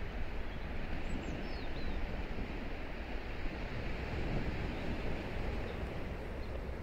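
Steady seaside ambience: a hiss of wind and distant surf, with a low rumble of wind on the microphone. A faint high, falling chirp comes about a second in.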